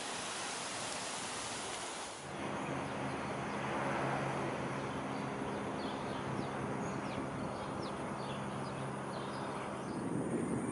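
Outdoor ambience: an engine running steadily at idle, with birds chirping in short quick calls. The steady noise changes abruptly to this hum about two seconds in.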